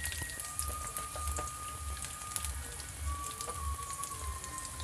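Chopped onion and garlic sizzling in a little hot oil in a pan, with a constant scatter of sharp crackles and pops.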